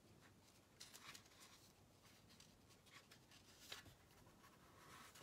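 Near silence, with a few faint, brief rustles of a paper strip and painter's tape being pressed onto a globe by hand.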